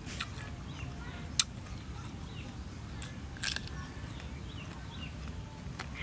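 Close mouth sounds of a person eating a mango: a few sharp wet smacks and sucking clicks, the loudest about a second and a half in, over a steady low rumble with faint bird chirps.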